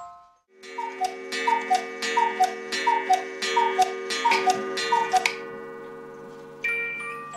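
Black Forest cuckoo clock calling the hour: about eight two-note cuckoo calls, each falling in pitch, each with a gong strike that keeps ringing underneath. Near the end a tune of high, clear notes begins, like a clock's music box.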